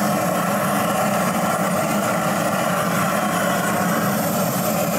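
A handheld propane torch firing steadily into split oak logs in a smoker's firebox to light the fire. It makes a continuous, even hissing roar.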